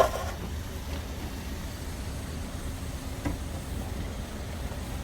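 Steady low background hum under a faint hiss, with one small click about three seconds in.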